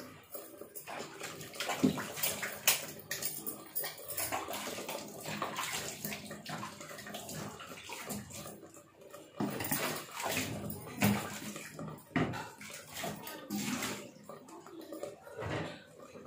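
Thick masala curry paste bubbling in a pan under a glass lid, with irregular pops and spits.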